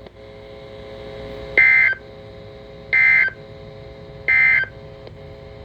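Three short bursts of Emergency Alert System data tones, a harsh digital buzz near 2 kHz, each about a third of a second long and spaced about 1.4 s apart. This is the end-of-message code that closes the weather radio alert. A faint steady hum runs underneath.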